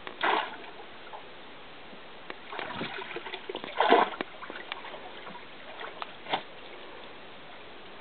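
Airedale terrier splashing in lake water as it goes after fish: one splash near the start, a flurry of splashes around three to four seconds in, loudest near four seconds, and a last splash a little after six seconds.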